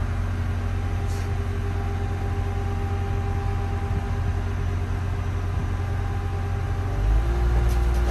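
Engine running at a steady speed, then revving up and getting louder about seven seconds in.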